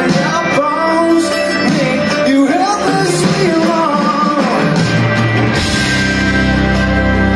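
Live rock band playing with a male singer. The bass gets much heavier about five seconds in.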